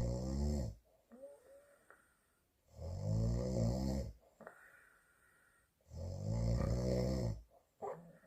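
A woman snoring in her sleep: three snores, each about a second long and roughly three seconds apart, with quiet breaths between.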